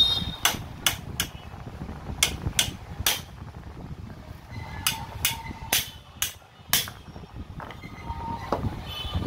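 Hand hammer striking the steel tool holder and locked chisel bit of a 5 kg demolition hammer, to knock the jammed bit free. Sharp metallic blows with a short ring, in three quick runs: three, three, then five.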